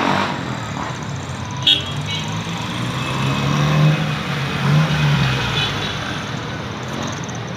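Street traffic, with a motor vehicle's engine running close by, loudest around the middle and peaking twice. A brief sharp clink comes about two seconds in.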